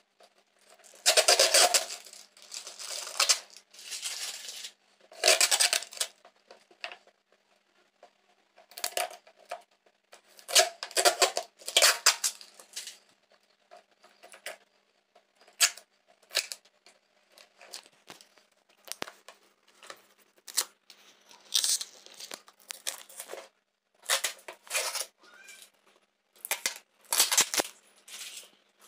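Scissors cutting open a plastic-wrapped parcel, with tearing and crinkling of the plastic wrapping in irregular bursts.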